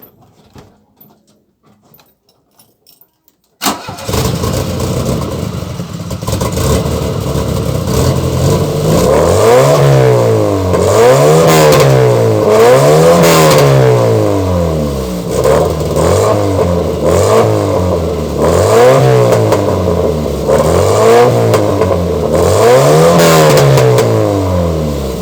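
VW Gol's engine through a dual exhaust, starting up about four seconds in, idling briefly, then revved repeatedly, each rev rising and falling in pitch over a second or two before it settles back.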